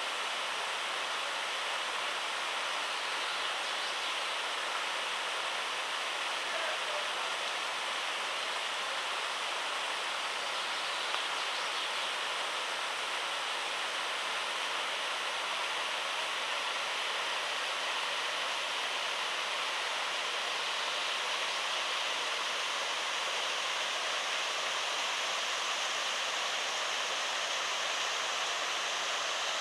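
Waterfall splashing, a steady, even rush of falling water heard close up.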